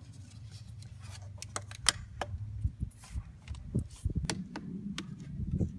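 Scattered light clicks and knocks of parts being handled during work on a car's air intake, over a low rumble that grows more uneven about four seconds in.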